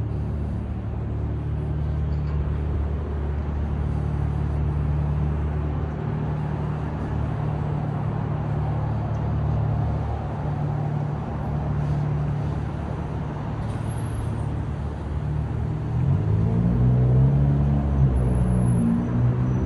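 City street traffic: vehicle engines running with a steady low hum over road noise, getting louder for a few seconds near the end.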